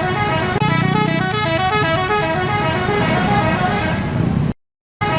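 Multi-tone musical bus horn sounding a quick run of stepping notes, like a short tune played over and over. It cuts out suddenly near the end for about half a second, then starts again.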